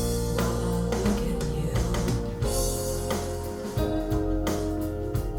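Recorded music played back through Q Acoustics 3020 bookshelf speakers: a guitar-led instrumental passage of a song over a steady bass line, between sung lines.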